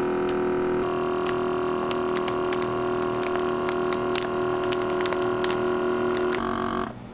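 Countertop vacuum sealer's pump running with a steady hum as it draws the air out of a plastic bag, with light crackles from the bag. Near the end the pitch drops, and the motor then cuts off.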